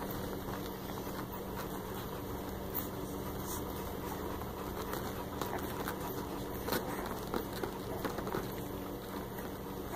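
Newborn English Mastiff puppies suckling, with soft wet clicks and smacks scattered over a steady low hum; the clicks come more often in the second half.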